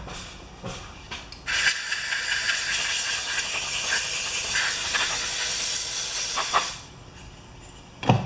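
A pressurised spray hisses steadily for about five seconds, starting about a second and a half in, as the dirty, sand-clogged float bowl area of a lawn mower carburetor is cleaned out. A few light clicks of handling come before it.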